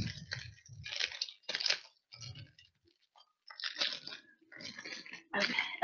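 Crinkling and crunching as a caramel crispy cake in its wrapper is handled and broken apart by hand, in several irregular bursts with short pauses between.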